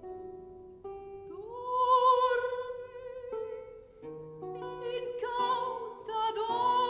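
Classical vocal music with a plucked-string accompaniment: a few plucked notes, then a trained singer's voice enters about a second in, sliding up into a long note held with vibrato, with a second sung phrase near the end.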